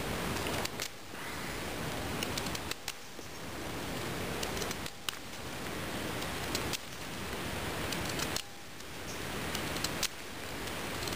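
Small folding saw blade of a Victorinox Swiss Army knife cutting through wood in slow, even strokes, a steady scratchy noise that breaks off briefly about every two seconds as the stroke turns.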